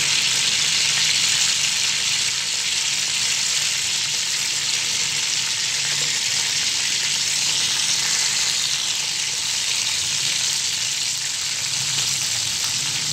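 Sliced onions sizzling steadily in hot oil in an aluminium karahi, added a few at a time.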